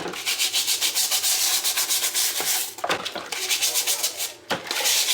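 A scrubbing brush worked back and forth over the dishwasher filter in quick, rhythmic strokes, several a second, broken by two short pauses.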